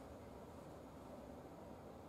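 Near silence: a steady low hiss of room tone, with no distinct event.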